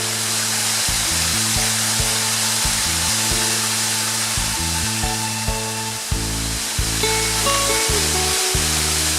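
A steady rushing hiss of falling water from a waterfall, under background music whose low notes and chords change every half second or so.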